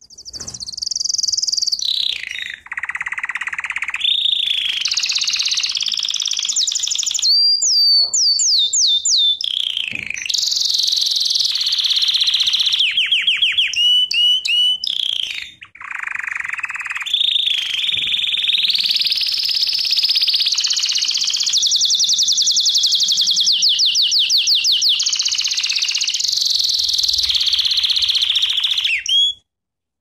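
Canary singing one long continuous song: a run of fast trills and rolls that switch to a new pattern every second or two, mixed with quick rising and falling whistles. It breaks off abruptly about a second before the end.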